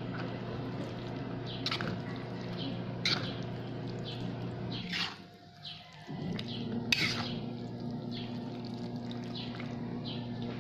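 A fork stirring spaghetti in a sauce-filled pan, clicking sharply against the pan a few times, over a steady hum and short high chirps. The sound drops out briefly about halfway.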